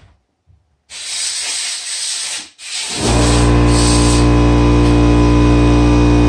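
Compressed-air blow gun hissing, a burst about a second in, a short break, then the air compressor's motor starts about three seconds in with a loud steady hum under the continuing hiss.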